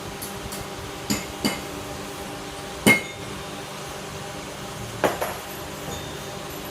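Spot welding machine working on aluminium parts: a series of sharp metallic clanks as the electrodes close and fire, with two early, the loudest about three seconds in and a pair near the end, over a steady electrical hum.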